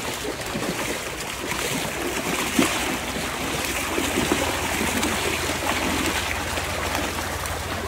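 Shallow, fast stream rushing steadily over a concrete channel bed, with a few splashes from rubber boots wading through it.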